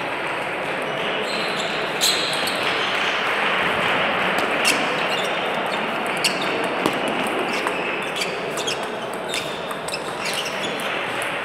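Table tennis balls clicking sharply off bats and tables at irregular intervals, over the steady murmur and chatter of a busy sports hall where several tables are in play.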